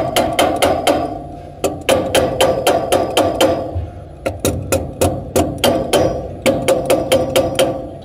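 A wrench tapping a new blower motor sheave (pulley) along the motor shaft: quick metal-on-metal taps, about five a second, in four runs with short pauses, with a ringing note under each run.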